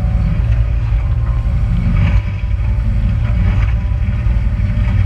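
Speedboat under way at speed: a steady low engine rumble with heavy wind buffeting on the microphone.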